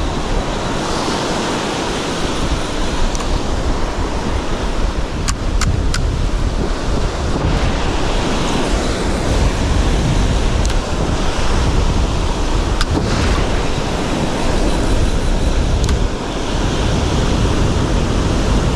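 Small surf waves breaking and washing on a sand beach, with wind buffeting the microphone in a steady low rumble. A few faint clicks sound in the middle.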